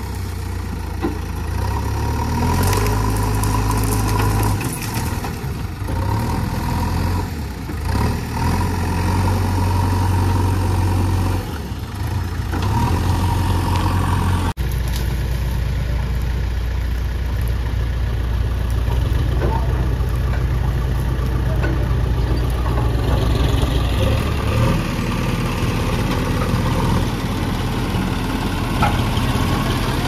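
Diesel engine of a JCB 3DX backhoe loader running, its pitch stepping up and down several times as the machine works. About halfway through, the sound cuts to a steady diesel engine running beside a John Deere tractor.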